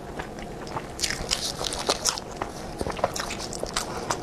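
Close-miked eating sounds: wet, sticky chewing clicks and smacks from a mouthful of glutinous-rice zongzi, with crackly bursts as the sticky rice is pulled apart by plastic-gloved hands.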